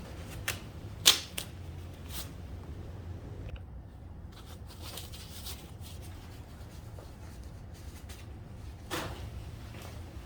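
Scattered sharp clicks and knocks of tools and parts being handled on a workbench, the loudest about a second in and another near the end, over a steady low hum.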